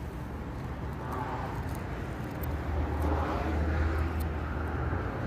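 Low, steady motor hum that grows louder about halfway through, over general outdoor street noise.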